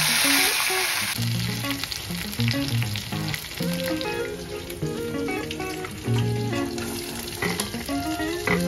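Food sizzling in hot oil in a pan while poha is being cooked; the sizzle is loudest for about the first second. Background music with a melody plays over it.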